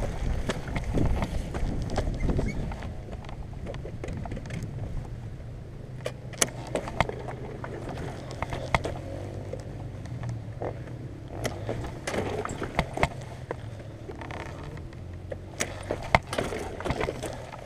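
Kawasaki dirt bike engine running steadily at low revs, with scattered clicks, knocks and rattles as the bike goes over rough dirt.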